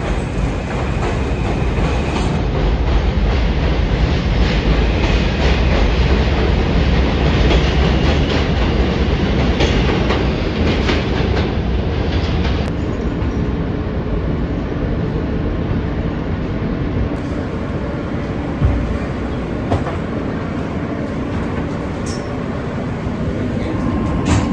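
New York City subway R160 trains running on the rails: a steady, loud rumble with wheel clatter as a train passes through a station and another pulls into an elevated platform. The sound changes abruptly a few times.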